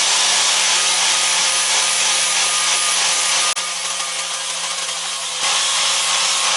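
Electric grinder running steadily while it polishes the flat face of a hedge trimmer blade, scrubbing plant resin and gunk off the steel. There is a brief break about halfway through, then a quieter stretch before the grinding comes back to full level.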